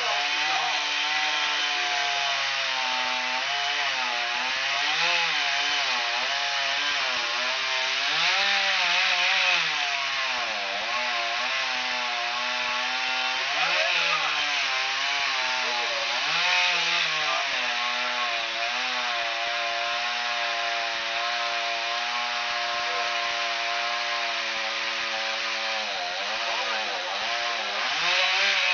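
Chainsaw running at high speed while cutting wood, its engine pitch dipping and recovering again and again as the chain loads up in the cut.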